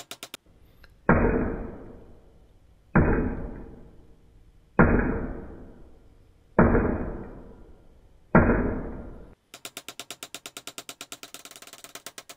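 Five light hammer taps on the end of a steel toy axle held in vise grips, about two seconds apart, each ringing briefly and fading, as the axle end is peened over into a mushroom head to hold the wheel on. Near the end comes a quick run of clicks, about seven a second.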